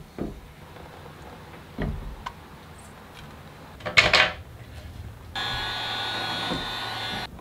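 A knock, then a louder short clatter about four seconds in as the 3D-printed plastic hydrofoil wing is handled onto its mast. Then a cordless drill runs steadily for about two seconds, drilling down into the printed wing, and stops just before the end.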